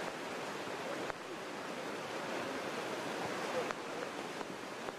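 A river in full flood: fast, muddy floodwater rushing past in a steady, even noise.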